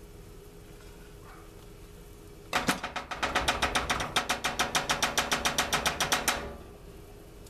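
A rapid, even run of sharp clicks, about seven a second, starting a couple of seconds in and lasting about four seconds.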